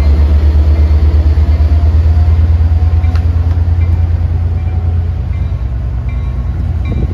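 Diesel locomotive of a Trinity Railway Express commuter train pulling out, its engine a deep, pulsing rumble that slowly fades as the train moves away.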